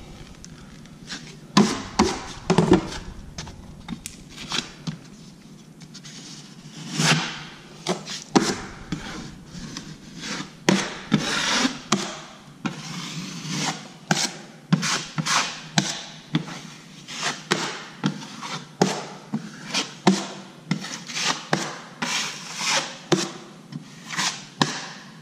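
Drywall knife scraping over the paper face of a freshly set California patch in short repeated strokes. The strokes are a few separate ones at first, then a steady run of about one to two a second. They squeeze joint compound and air bubbles out from under the paper.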